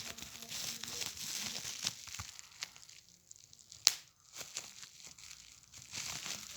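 Plastic being crumpled and crushed in the hands, crinkling in bursts, with one sharp pop a little before four seconds in.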